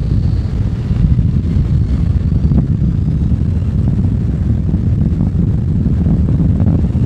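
Steady low rumble of wind buffeting the microphone and tyres rolling on a gravel track from a Zero FX electric motorcycle riding along, with a few faint ticks.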